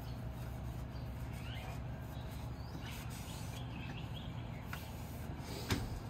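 Cloth rubbing along a kukri blade as the packing oil is wiped off, over steady low background noise, with birds chirping a few times. A single sharp tap comes near the end.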